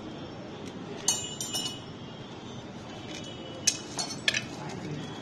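Metal parts of a motorcycle's automatic centrifugal clutch clinking against each other and against tools as they are handled during dismantling. There is a handful of sharp metallic clinks, a few briefly ringing, about a second in and again around four seconds in, over a steady background hum.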